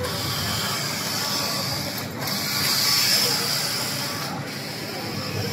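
AFC380C-9.2G computerized whole-garment flat knitting machine running, its carriage travelling along the needle bed with a steady mechanical whir. The sound swells and eases and breaks off briefly twice, about two seconds apart.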